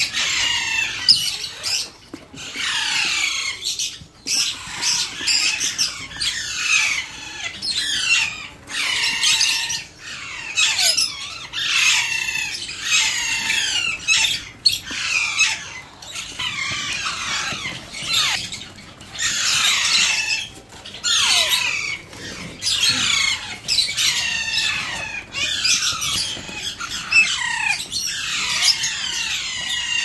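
Alexandrine parakeet chicks giving harsh, rasping begging squawks over and over, each call falling in pitch, one or two a second.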